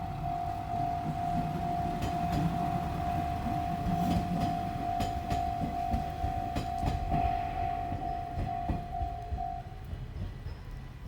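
Japanese railway level-crossing alarm ringing in a steady, evenly repeated electronic ding while a diesel train rumbles across, its wheels clicking over the rail joints; the crossing bell stops near the end.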